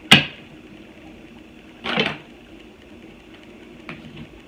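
Tarot cards being handled and shuffled: a sharp card snap at the start, a short burst of shuffling about two seconds in, and a faint tick near the end.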